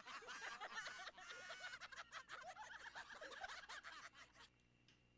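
A crowd of many voices cheering and shrieking together, heard faintly, dying away about four and a half seconds in.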